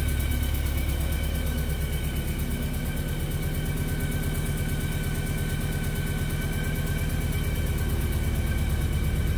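A 2000 Chevy S10's 2.2-litre four-cylinder engine idling steadily, with a faint steady whine above the low engine note.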